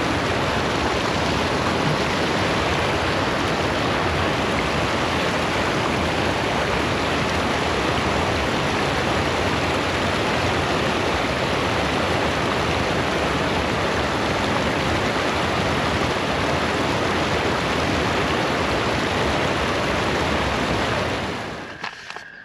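Creek water rushing over rocks, a loud, even, unbroken rush that drops away near the end.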